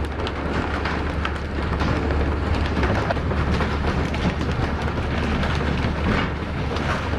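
Freshly caught skipjack tuna thrashing and splashing in a bin of water and slapping their tails against the deck, a dense run of wet slaps and splashes over a steady low hum.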